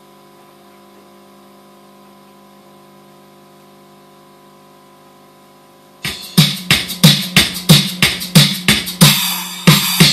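A quiet steady electrical hum from the keyboard rig, then about six seconds in an arranger keyboard's drum-machine rhythm starts loudly, with sharp beats about three times a second.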